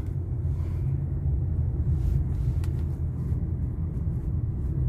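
Steady low rumble of motor vehicles, with one faint click just past halfway.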